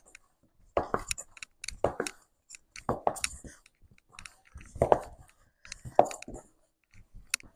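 Hands kneading a stiff whole wheat poori dough, squishing and pressing it in strokes about once a second.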